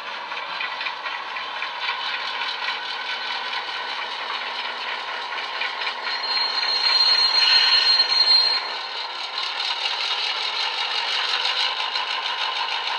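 Irish 121 class diesel engine sound from a LokSound 5 sound decoder, played through the small speaker of a model locomotive under way, thin with no bass, over the rattle of the model running on track. About six seconds in, a high steady squeal comes in over it for two to three seconds and stops.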